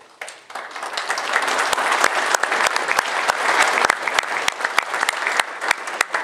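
Audience applauding, the clapping building up over the first second and then holding steady, with a few close, sharp claps standing out.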